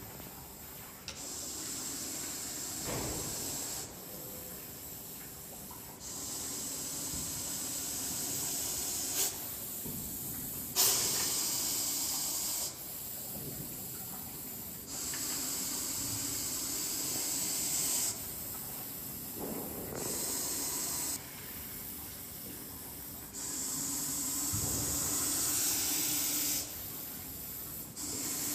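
Russell's viper hissing loudly and repeatedly, each long hiss lasting one to three seconds and coming every few seconds, with quieter breaths between. This is defensive hissing from a cornered, agitated snake.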